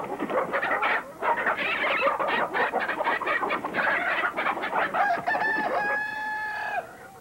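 A flock of chickens squawking and cackling all at once in a noisy commotion. About five seconds in it thins to a few longer, steadier held calls.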